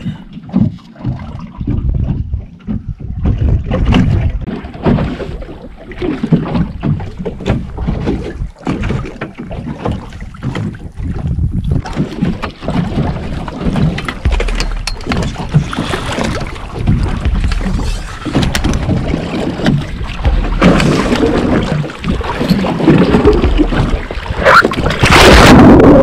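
Wind buffeting an action camera's microphone, with knocks from handling, over open water on a boat. Near the end comes a loud splash and rush of water as the camera goes underwater with a spearfisherman entering the sea.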